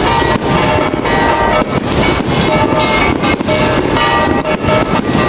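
Aerial fireworks bursting and crackling in quick succession, with music playing underneath.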